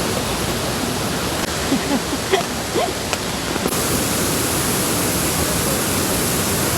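Shifen Waterfall's falling water rushing as a steady, dense noise that gets brighter in tone a little past halfway.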